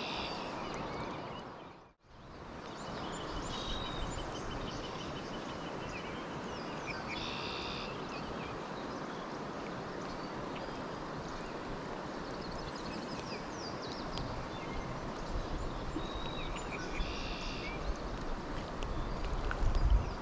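Steady rush of fast-flowing river water, with a bird calling in short chattering bursts several times. The sound cuts out for a moment about two seconds in, and a low rumble builds near the end.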